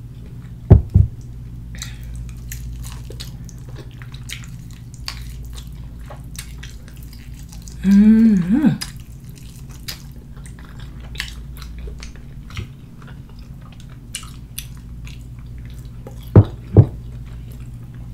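Close-up mouth sounds of someone eating fried chicken by hand: soft chewing, wet lip smacks and small clicks over a steady low hum. About eight seconds in there is a short, appreciative 'mmm'. Two pairs of loud low thuds come, one just after the start and one near the end.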